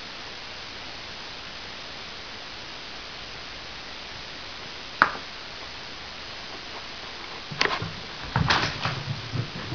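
A single sharp click about halfway through, then a short run of knocks and rattles near the end, over a steady hiss.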